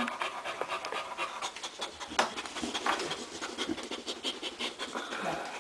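Boxer bitch panting rapidly in labour, while whelping a puppy.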